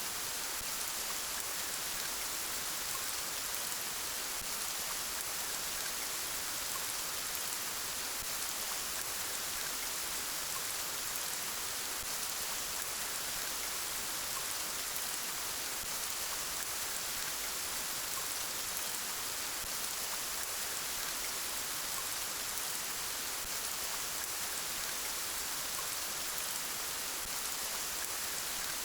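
Steady rain falling, an even hiss of drops without pause or change.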